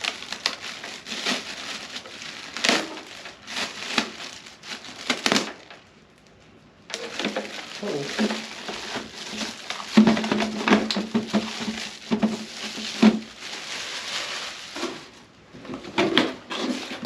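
Packaging being pulled off a new ultrasonic humidifier: irregular crinkling, rustling and knocks of plastic and cardboard being handled. There is a brief lull about six seconds in, and a steady low tone for about three seconds past the middle.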